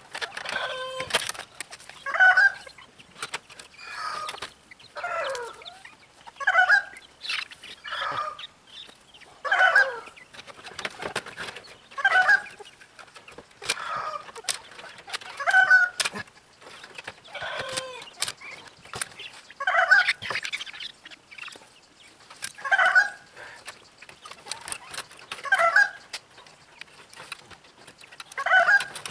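Chickens clucking and calling over and over, one short call about every two seconds, with scattered sharp clicks between the calls.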